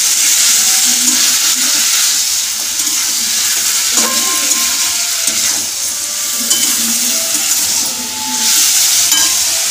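Food frying in hot oil in a pan, sizzling with a steady loud hiss while it is stirred.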